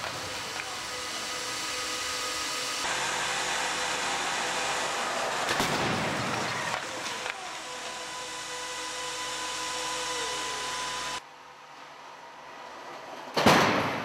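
Moving crash barrier slamming into the side of a Mazda CX-7 in a side-impact crash test: a sudden crash bang heard twice, once about six seconds in and louder near the end, over a steady hiss and hum.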